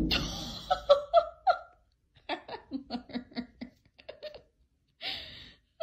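A person laughing: a few short laughs, then a quick run of laughter at about six bursts a second.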